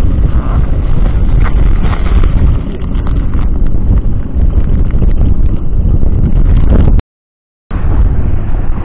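Loud wind buffeting the microphone, with a plastic bag crinkling as it is handled and opened. The sound cuts out briefly about seven seconds in, then the wind rumble carries on.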